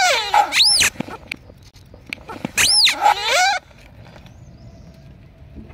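Rubber squeaky animal toys squealing under a slowly rolling car tyre as it squashes them: two loud squeals, each about a second long, the pitch rising and then falling, with a faint low rumble of the tyre rolling in between.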